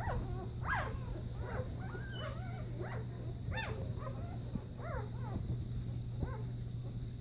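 Three-day-old collie puppies squeaking and whimpering while nursing, in short rising-and-falling cries, a few a second, over a steady low hum.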